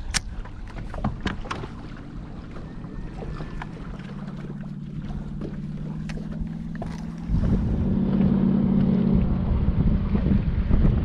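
Electric bow-mounted trolling motor humming steadily, joined about seven seconds in by wind rumbling on the microphone; a few light clicks sound in the first couple of seconds.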